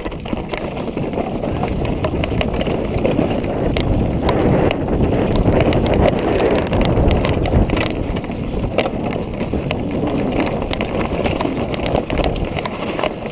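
Orbea mountain bike rolling fast downhill over a dirt and rocky trail: continuous tyre and trail noise with many quick rattles and knocks from the bike as it goes over the bumps.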